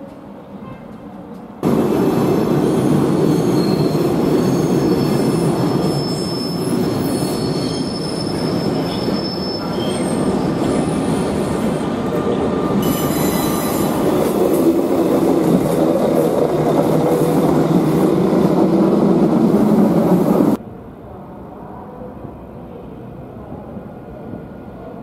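Train running over the curved tracks and points close by, a loud rumble with thin, high wheel squeals over it. It starts and stops suddenly and gives way to a much quieter rumble near the end.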